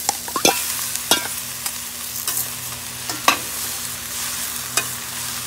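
Diced ridge gourd and drumstick pieces sizzling in a stainless steel pan as the gourd is tipped in and stirred with a metal spatula, with sharp metal clinks and scrapes against the pan every second or so.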